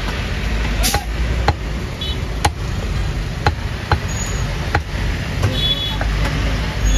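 Butcher's cleaver chopping mutton on a wooden log block: short sharp knocks at irregular intervals, about one a second. A steady low traffic rumble runs underneath.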